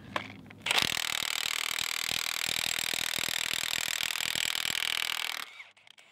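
Milwaukee M18 FUEL 3/4-inch cordless impact wrench hammering in reverse on a large, very tight bolt with a 1.5-inch socket. It starts about a second in, runs steadily for nearly five seconds and then stops. The bolt cracks loose and backs out.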